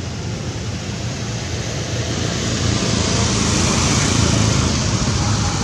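Steady rushing outdoor background noise with a low rumble underneath, growing a little louder about two seconds in.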